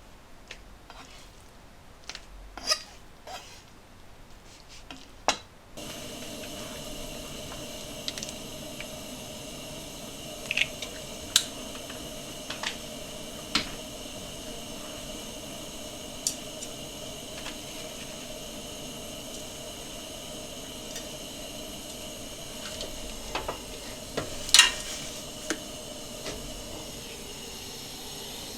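Scattered clinks and taps of dishes and cooking utensils during food preparation. A steady hum sets in suddenly about six seconds in.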